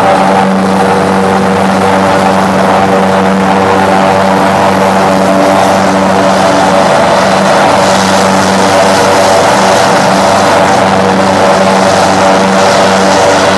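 Irish Air Corps helicopter running on the ground, its turbine engines and rotor giving a loud, steady whine over a low hum.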